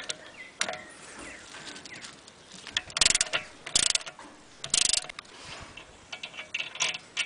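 Ratchet wrench clicking in three quick bursts about halfway through as it turns the large rear drive-axle nut off the hub, with scattered lighter metal clicks of the socket and nut around them.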